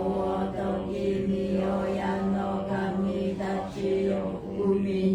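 Japanese Shinto-style prayer (norito) chanted aloud by the congregation in unison, on one nearly unchanging pitch.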